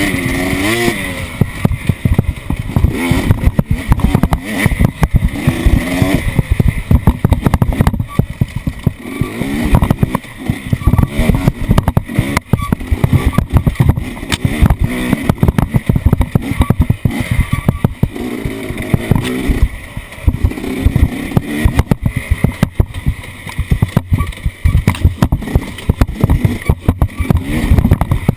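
Off-road vehicle driving a rough trail, its engine revving up and down under constant thumps and rattles from the bumpy ground.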